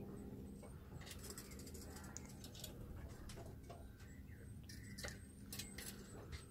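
A Swinhoe's striped squirrel's claws scratching and clicking faintly on wood as it climbs and leaps. The clicks come in a cluster about a second in and again around five seconds in.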